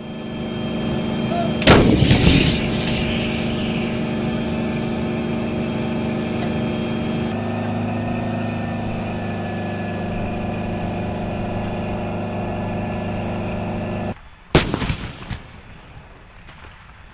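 M109 Paladin self-propelled 155 mm howitzers: a steady engine hum, with a loud cannon shot about two seconds in and another near the end that is followed by rolling echoes.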